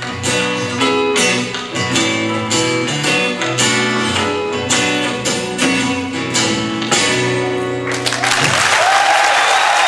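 Guitars strumming the closing chords of a song played live. About eight seconds in, audience applause breaks out.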